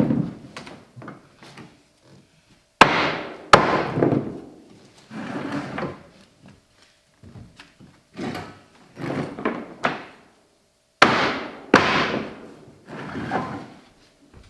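Hardwood flooring being nailed down with a floor nailer struck by a rubber mallet. Two pairs of sharp, loud strikes about two-thirds of a second apart, one pair near three seconds in and one near eleven, with softer knocks and rustling of boards between them.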